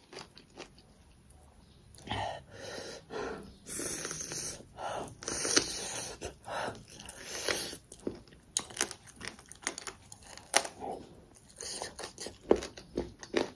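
Close-up eating sounds of a person chewing and biting into fried pork and noodles: an irregular run of wet mouth clicks and crunchy bites, starting about two seconds in.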